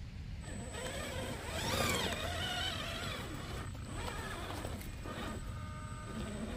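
Electric motor and geared drivetrain of an RC rock crawler whining as it climbs over rocks, the pitch rising and falling with the throttle, over a thin steady high whine.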